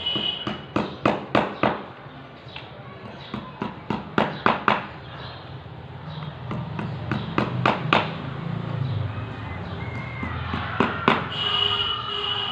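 Hammer blows in short runs of three or four quick strikes, repeated several times, over a steady low hum.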